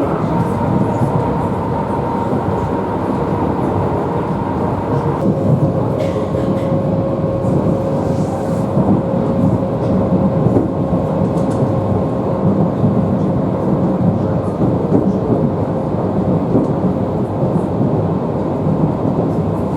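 Russian suburban electric train (elektrichka) running, heard from inside the carriage: a steady rumble of wheels on rails with a thin motor whine whose pitch drops about five seconds in.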